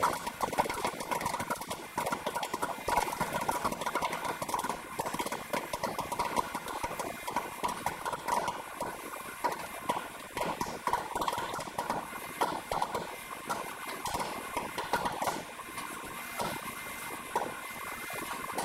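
Popcorn popping in the kettle of a Paragon 4-ounce popcorn machine: a dense, irregular run of quick pops and clicks, with a thin steady tone underneath.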